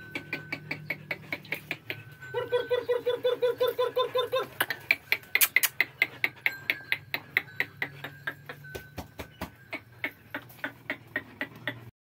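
Dog panting rapidly, about four breaths a second, with a whining voice on the breaths for a couple of seconds.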